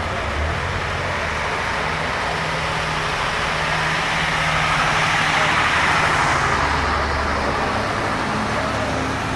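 Bedford lorry's engine running as it drives slowly past at close range, getting louder to a peak a little after halfway through and then easing as it moves on, with a Morgan roadster's engine following behind.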